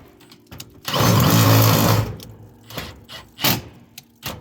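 Power drill driving a screw to fasten metal corner trim, running for about a second. A few short clicks and knocks follow.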